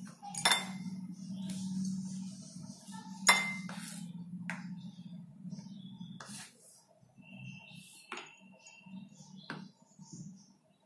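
Chef's knife slicing button mushrooms on a wooden cutting board: the blade knocks against the board at an uneven pace, about six knocks, the loudest a little over three seconds in, over a steady low hum.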